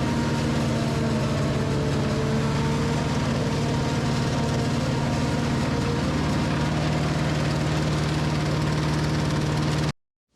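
Engine of heavy farm machinery running steadily at constant speed, a loud even drone, cut off abruptly near the end.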